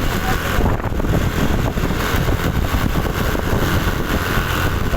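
Steady vehicle engine and road noise in traffic, with no telolet horn sounding.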